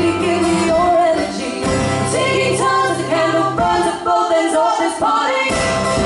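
Live folk duo: a woman singing with mandolin and acoustic guitar accompaniment.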